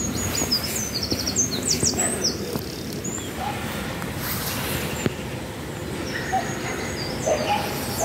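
Small songbirds chirping and twittering in short high calls and trills, busiest in the first couple of seconds and again near the end, over a steady low outdoor background noise.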